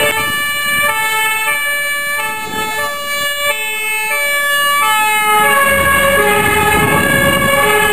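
Dutch fire engine's two-tone siren, stepping between a high and a low note about every half second, sounding on an urgent call. Near the end the truck's engine rumble comes in under it as the truck draws close.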